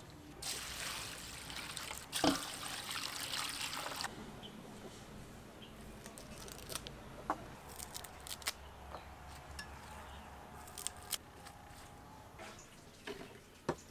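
Water pouring and splashing over bean sprouts in a metal bowl for about three seconds. Then scattered light clicks and snaps as green vegetables are handled.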